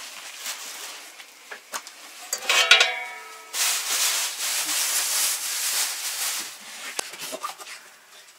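Metal pot lids being picked up and stacked: a few light knocks, then a clank with a short metallic ring about three seconds in. A few seconds of steady rustling and rubbing follow.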